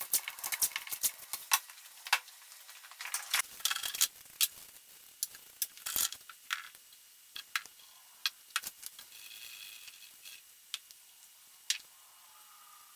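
Scattered light clicks, taps and rustles of small objects being handled and set down on a workbench, busiest in the first half.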